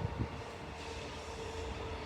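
Low, steady rumble of a passing electric train, with a faint steady tone coming in about half a second in.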